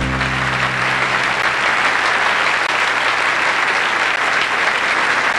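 Audience applauding steadily, with the band's last held chord of the song fading out in the first second or so.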